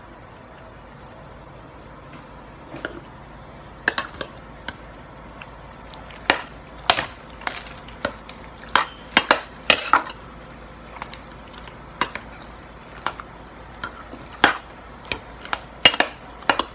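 Metal spoon clinking and scraping against a stainless steel pot while stirring thick, creamy pasta, in irregular sharp clinks starting about three seconds in.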